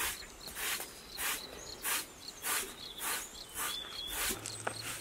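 Short straw hand broom sweeping a rug in brisk, even strokes, a swish roughly every two-thirds of a second.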